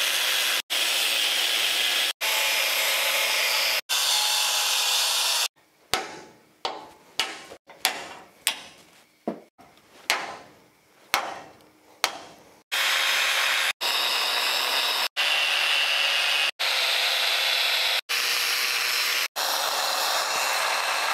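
Angle grinder cutting through the steel shackle rivets of a truck frame: a steady high grinding, broken by abrupt edit cuts. About six seconds in it gives way to a dozen or so hammer blows ringing on the steel as the rivets are knocked out, then the grinding resumes for the rest.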